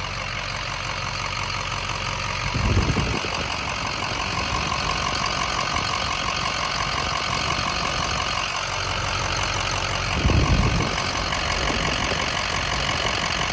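Freshly rebuilt Ford Power Stroke V8 turbo-diesel idling steadily, warm after its first long drive. Two brief low thumps or rumbles are heard, one about three seconds in and one near ten seconds.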